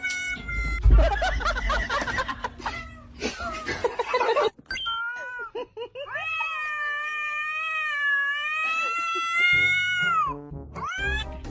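A cat yowling in one long drawn-out call, starting about five seconds in, its pitch wavering and then dropping at the end. Before it there is a jumble of noise with a thump about a second in, and music comes in near the end.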